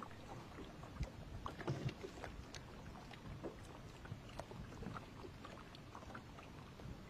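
Faint water splashing and lapping around a small boat, with scattered light ticks and a few soft knocks.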